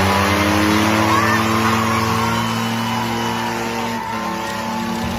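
Tractor engine running hard at high revs, its pitch rising a little in the first second and then holding steady.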